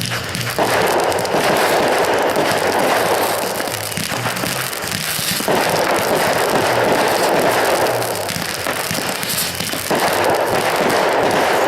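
Aerial fireworks crackling densely and continuously, the crackle swelling in three waves, with music playing underneath.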